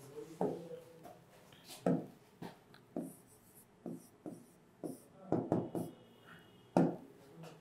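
Pen tip tapping and scratching on an interactive display screen while writing: a string of short, separate taps and strokes, with a quick cluster a little past the middle and a sharper tap near the end.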